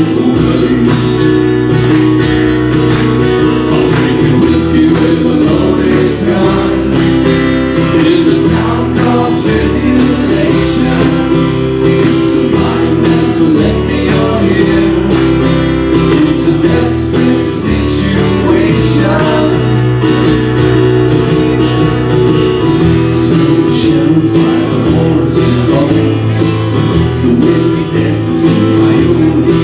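Live acoustic band music: steel-string acoustic guitars strummed together with keyboard accompaniment, playing continuously.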